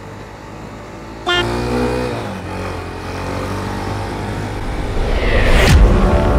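Road traffic heard from a moving motorcycle: a steady engine hum, then a horn-like honk about a second in, and a rising rush of noise that ends in a sharp swish near the end.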